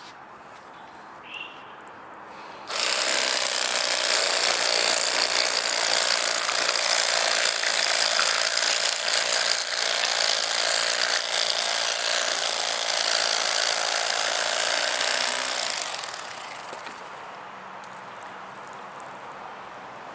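Cordless Bubba Blade electric fillet knife running with a dense, buzzing mechanical whir. It starts abruptly about three seconds in and fades out around sixteen seconds.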